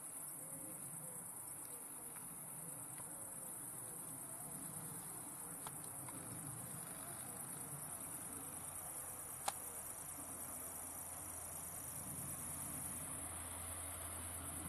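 Grasshopper warbler reeling: one long, unbroken, high, insect-like trill. A single sharp tick about two-thirds of the way through.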